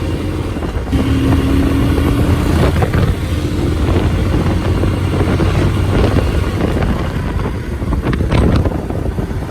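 Honda XR150L motorcycle engine running while being ridden, its note rising slightly and stepping up a little about three seconds in, with a few short sharp noises near the end.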